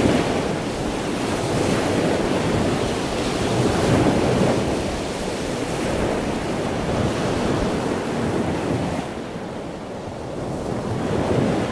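Sea surf: waves washing in and breaking, rising and falling every few seconds, with wind on top.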